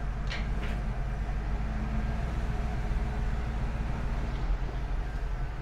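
A 1983 Ford Mustang's carbureted 5.0-litre V8 idling steadily just after start-up, with two short clicks in the first second.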